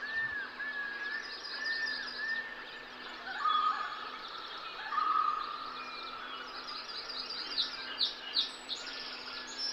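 Background nature ambience of birds chirping. Short, quick, repeated high chirps mix with a few longer whistled notes, two of them about three and a half and five seconds in.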